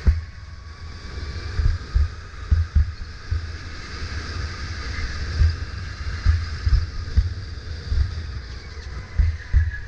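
Sodi RSX2 electric go-kart heard from onboard at speed: a thin high whine that drifts in pitch as the speed changes, over tyre and road noise. Irregular low thumps come through about once or twice a second.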